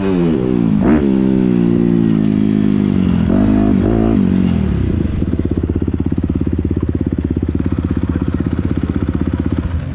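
Motocross bike engine heard close up from onboard: revs rising and falling with a sharp throttle blip about a second in, then, from about halfway, settling into a steady low putter as the rider backs off and coasts at low speed.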